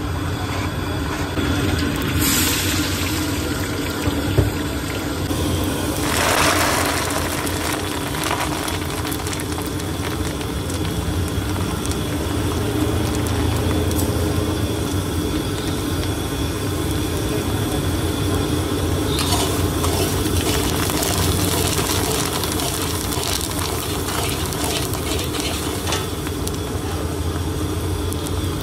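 Liquid bubbling vigorously in a large steel kadhai over a burner, a steady rushing, bubbling noise.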